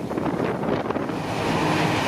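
Steam-hauled train running past close by: scattered sharp beats over a rushing noise that swells about a second in, with wind buffeting the microphone.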